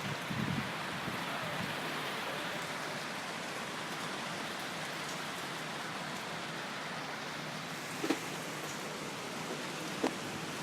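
Rain pouring down steadily in a sudden storm, with two short knocks near the end.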